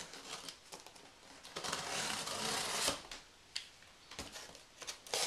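Box cutter slitting the packing tape on a cardboard box: a rasping cut of about a second and a half about halfway through, ending in a sharp click, then a few light clicks and taps against the cardboard.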